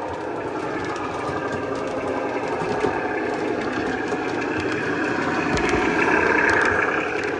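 Lionel O-gauge Doodlebug model motor car running on the layout track: a steady mechanical rumble of its motor and wheels on the rails, with a few clicks, swelling louder as it comes nearer about five to seven seconds in.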